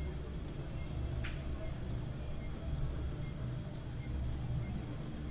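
A cricket chirping steadily, about two and a half short chirps a second, over a low steady hum.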